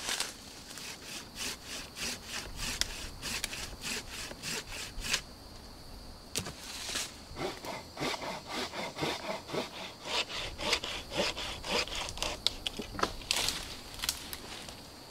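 Hand saw cutting through a green sapling trunk in quick back-and-forth strokes, about three a second. There is a short pause about five seconds in, then the sawing resumes.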